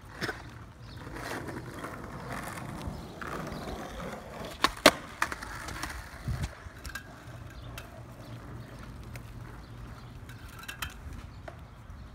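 Skateboard wheels rolling over asphalt, with a steady rumble and a few sharp clacks of the board, the loudest about five seconds in.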